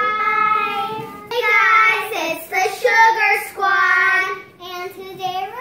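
Young girls singing together loudly in long held notes, broken into short phrases.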